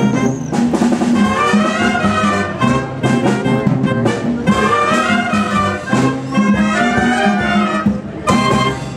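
Concert wind band playing a Latin-style piece: clarinets, saxophones and brass over Latin percussion. It closes on an accented final chord near the end.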